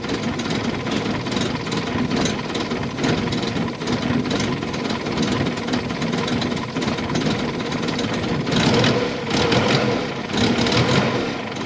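Moskvich-403's four-cylinder overhead-valve engine idling just after its first start, running unevenly because its ignition timing still needs correcting. The engine gets briefly louder about eight and a half seconds in.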